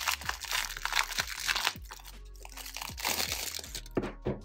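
Clear plastic cellophane wrap crinkling and crackling as it is peeled off a paperback sticker book, loudest in the first second and a half and again about three seconds in. Background music plays underneath.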